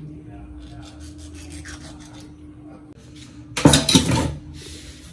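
Kitchen knife cutting through a mackerel on a plastic cutting board with faint scraping strokes, then a loud metal clatter of knives lasting under a second about three and a half seconds in, as one knife is swapped for another.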